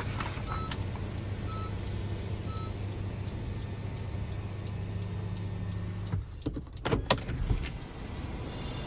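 Electric sunroof motor of a Honda CR-V running with a steady hum as the glass panel slides open, stopping suddenly about six seconds in. A few knocks and clicks follow, the loudest about seven seconds in.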